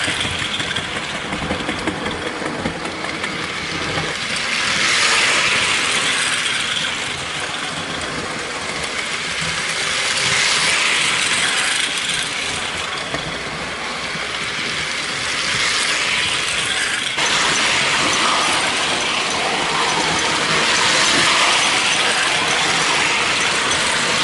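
American Flyer 300AC toy steam locomotive and its cars running around the layout track. The motor and gears whir and the wheels clatter on the rails, swelling each time the train passes close, about every five or six seconds. The locomotive is freshly oiled and greased, and is running again after a broken wire was resoldered.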